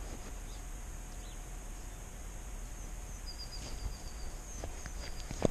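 Quiet rural outdoor ambience: a steady high-pitched hiss with faint, quick bird-like chirps, including a rapid run of them a little past halfway. Near the end comes a short, sharp knock.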